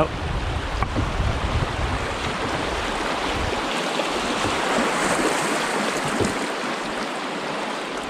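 River rapids rushing and churning around a canoe as it runs through whitewater, a steady loud rush of water. A low rumble sits under it for the first three seconds or so, then drops away.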